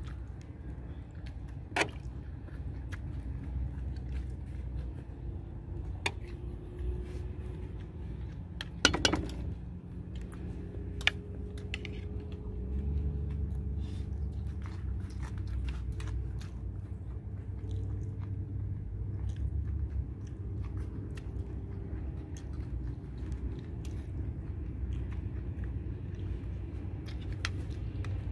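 Eating sounds: scattered light clicks and taps of a fork on plates and chewing, with a sharper clatter about nine seconds in, over a steady low rumble.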